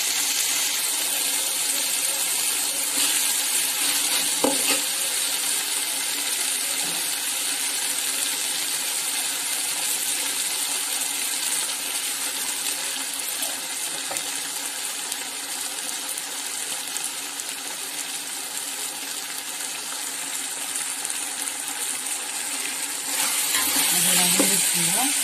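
Sliced onions, green chillies and ginger-garlic paste sizzling steadily in hot oil in a steel pot, with a single light clink about four seconds in. Near the end a ladle stirs through them and the sizzle grows louder.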